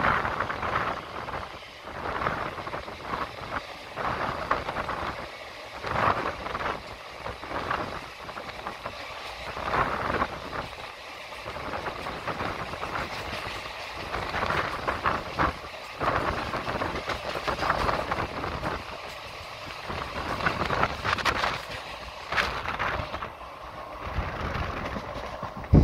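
Running noise of a moving train heard from its open door: steel wheels rolling on the rails with irregular clatter and rattling that swell and fade.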